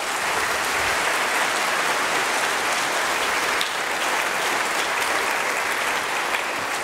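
Audience applauding steadily: a dense, even patter of many hands clapping at once.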